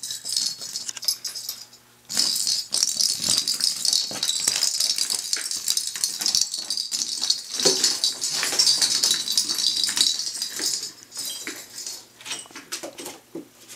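Dense, high-pitched rattling and crinkling with many small clicks, as a toy is shaken or handled, running from about two seconds in until about eleven seconds, then thinning to scattered faint taps.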